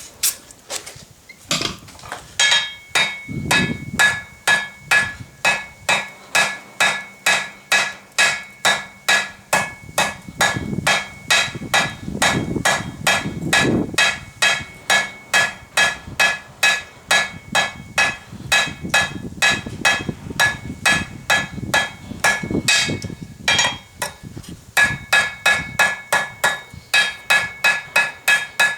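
Blacksmith's hammer striking hot 1/4-inch steel bar on an anvil in a steady rhythm of about two and a half blows a second, each blow ringing. The hammering starts about a second and a half in and stops briefly a few seconds before the end.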